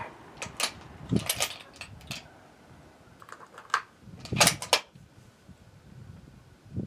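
Metallic clicks and clacks of a Savage 10FP-LE .308 bolt-action rifle's bolt being worked after a shot, in short bunches, the loudest clack about four and a half seconds in.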